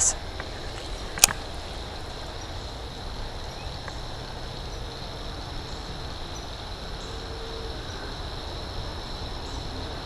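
Steady outdoor insect chorus droning at one high pitch, with a single sharp click about a second in.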